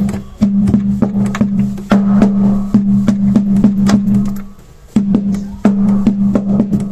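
Background music with a steady low drone and a quick, even percussive beat, dropping out briefly twice.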